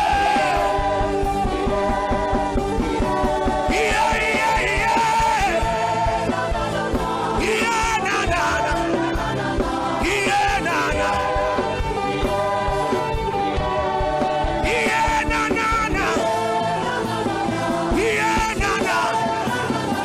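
Gospel worship music with singing, playing steadily without a break.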